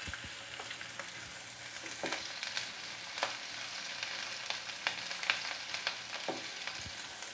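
Garlic, onion and green chilies sizzling in hot oil in a nonstick pan while being stirred, the spatula scraping and tapping against the pan now and then in short clicks over a steady frying hiss.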